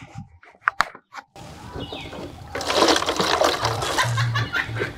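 Water gushing and gurgling like a flush, starting abruptly about a second in and growing louder, after a few small clicks.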